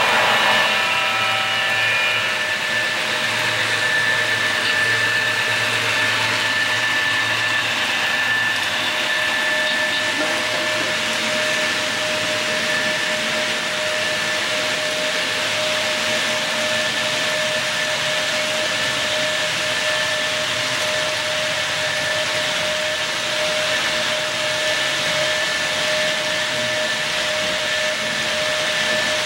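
HO-scale model freight train of autorack cars running past on the track: a steady whirring rolling noise with a constant thin hum over it.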